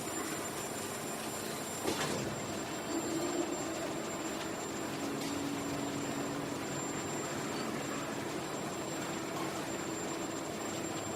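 Factory ambience: a steady noise of running machinery with a faint high whine and a low hum, and a single sharp clank about two seconds in.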